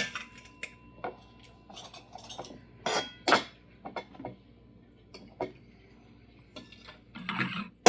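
Cutlery clinking and scraping on dishes while eating, in scattered sharp strikes, with two louder clinks about three seconds in and a busier cluster near the end.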